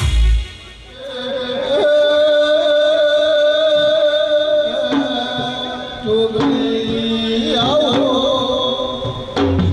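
A singer holds long, wavering notes of a Gujarati devotional folk song, shifting to a lower note about six seconds in. A heavy drum beat breaks off about half a second in and comes back just before the end.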